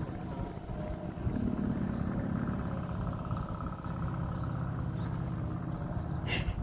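Large babon angrem kite droning steadily in the wind, the strange sound it makes in flight, over wind rumbling on the microphone. A short sharp crackle comes near the end.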